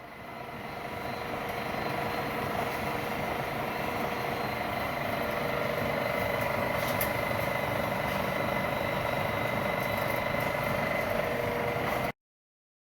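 Metal lathe running at speed, turning down galvanised steel pipe: a steady mechanical whine with a few held tones over a noisy hum. It builds up over the first couple of seconds and cuts off abruptly near the end.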